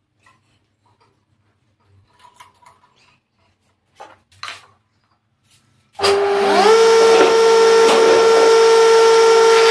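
A few light knocks as a square wooden blank is clamped into a wood lathe, then about six seconds in the lathe's motor switches on. Its whine climbs briefly as it spins up, then runs loud and steady as the blank turns.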